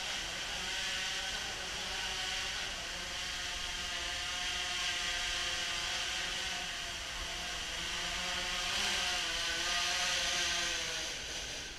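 DJI Phantom 3 Professional quadcopter in flight, its four motors and propellers buzzing steadily, the pitch wavering as it manoeuvres. The sound drops near the end.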